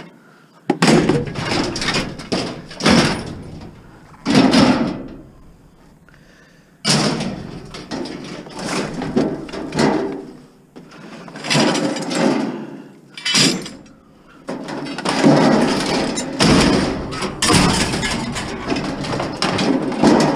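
Mixed scrap metal being shifted and thrown around in a loaded truck: a long run of irregular clattering, scraping bangs, with two short pauses.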